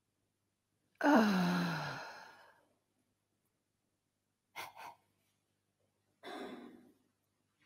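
A voice lets out a long, loud sigh about a second in, its pitch sliding steeply down. Two quick, short breaths follow, then a softer breathy exhale near the end.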